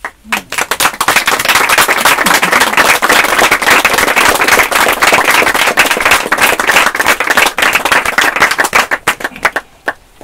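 Audience applauding: dense clapping that swells within the first second, holds steady, then thins out to a few last claps near the end.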